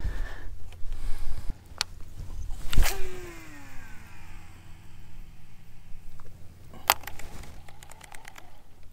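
A cast with a fishing reel: a sharp swish about three seconds in, then the spool whirring and falling in pitch as line pays out, and a sharp smack near seven seconds as the lure lands, followed by a few small clicks. A steady low hum runs underneath.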